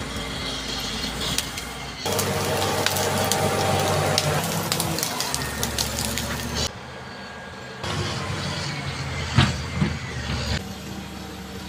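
Caterpillar D7G bulldozer running under load, its steady engine hum overlaid with many sharp cracks and clanks. The sound changes level abruptly several times, as one short clip cuts to the next.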